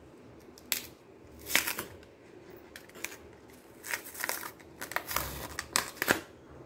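Outer sheath layers of a banana stem being peeled away by hand, giving several short, sharp tearing noises as the fibrous layers pull apart.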